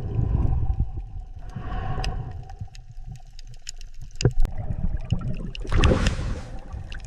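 Water rushing and gurgling, a constant low rumble with a faint steady hum, scattered sharp clicks, and two hissing surges, about a second and a half in and again near six seconds in.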